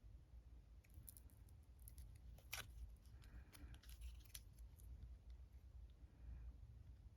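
Faint scattered clicks and scratchy taps of a brush and watercolour pans being handled while swatching paint, strongest about two and a half seconds in, then tapering off.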